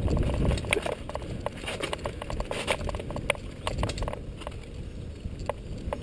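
Mountain bike rolling fast down a stony dirt trail: tyres crunching over loose rock and the bike rattling, with irregular sharp clicks and knocks over a low rumble that eases after the first half second.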